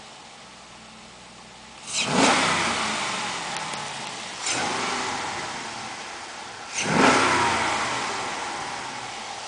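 2006 Pontiac GTO's 6.0-litre LS2 V8 running at idle and blipped three times, about two seconds apart; each rev climbs sharply, then falls back slowly to idle.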